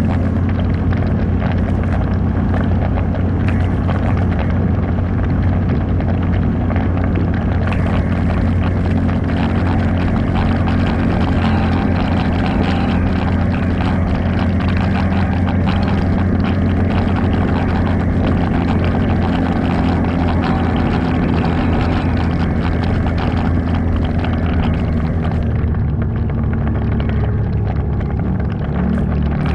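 ATV engine running steadily while riding, its note dropping near the end.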